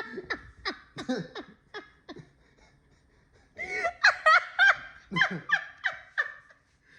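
Laughter in quick breathy bursts, dying down about two seconds in, then a louder, higher-pitched fit of laughing that fades near the end.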